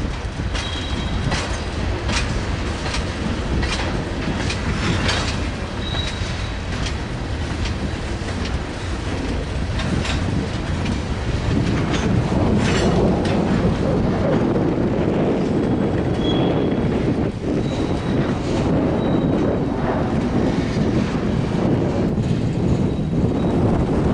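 Freight train rolling past with a steady rumble, its wheels clacking irregularly over the rail joints, with a few brief high wheel squeals.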